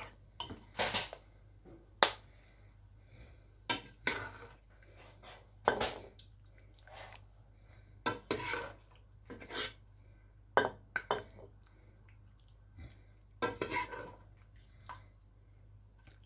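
Metal ladle scraping and clinking against the inside of an aluminium pressure cooker and a serving bowl as curry is ladled out: irregular short scrapes and knocks, the sharpest about two seconds in.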